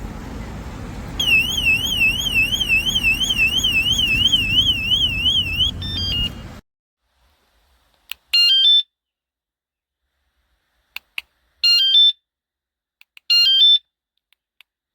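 WSDCAM USB-rechargeable bike alarm sounding its siren: a loud, high warbling tone, rising and falling about four times a second, that stops about six seconds in. Later come three short runs of stepped electronic chirps, each under a second long.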